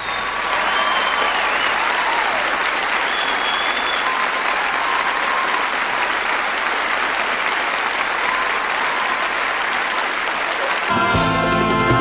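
Audience applauding after a song ends, with a few whistles over the clapping. About eleven seconds in, the band starts playing again.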